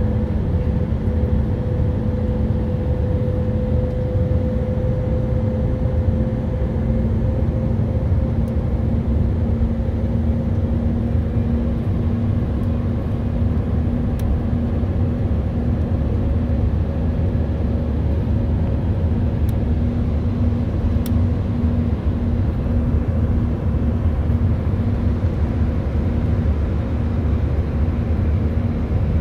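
Airbus A319-132's IAE V2500 turbofan engines heard from inside the cabin while climbing: a steady, loud rumble of engine and airflow with two constant droning tones, one low and one higher.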